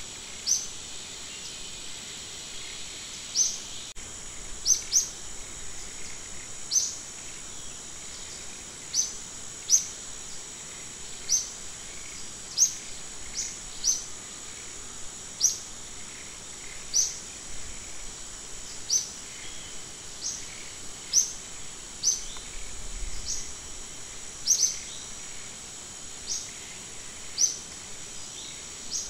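Forest ambience: short, high bird chirps repeated every second or two over a steady, high-pitched insect drone.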